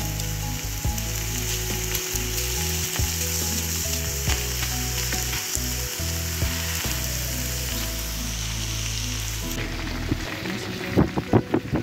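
Diced pork fat sizzling steadily on a hot flat metal pan as it begins to render its fat. Near the end there are a few sharp clicks.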